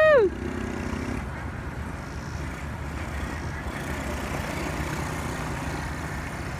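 Apollo VRX125 quad's small single-cylinder four-stroke engine: a high rev drops away right at the start, then it runs at low revs as a quieter, steady low drone.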